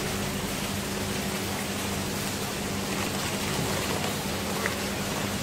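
Running water: a steady, even rush of water, with a faint steady low hum under it.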